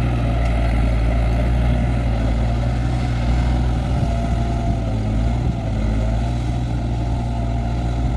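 Engine of a rice harvester converted into a paddy tiller, running steadily under load as the machine churns through flooded mud. A faint wavering whine rises over it around the middle.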